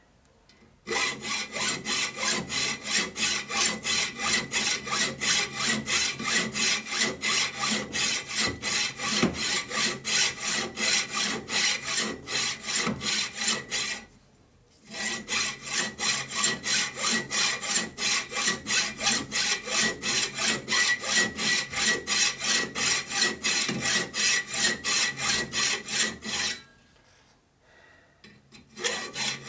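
Hand hacksaw sawing through metal stock in steady back-and-forth strokes, about two to three a second. It pauses briefly about halfway through and again near the end.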